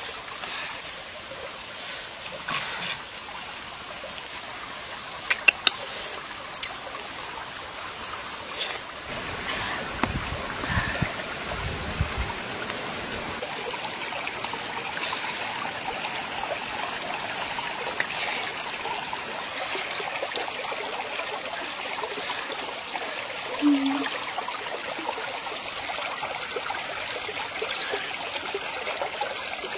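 Shallow stream water trickling steadily over rocks, with a few sharp clicks about five to six seconds in.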